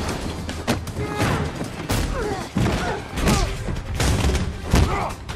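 Action-film fight soundtrack: score music with a steady low pulse, cut through by a rapid series of sharp punch and body-impact hits.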